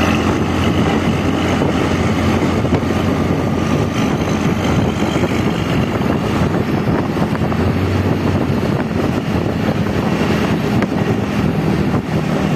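Hino bus diesel engine running steadily with a deep, snoring growl, the 'ngorok' sound bus fans know it for.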